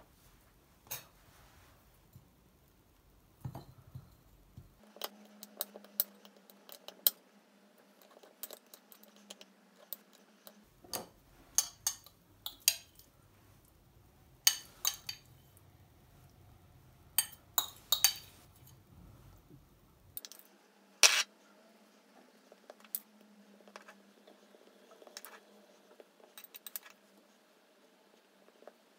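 Metal fork clinking and scraping against a ceramic bowl and on toast while mashing and spreading avocado: a string of irregular sharp clinks with short quiet gaps between.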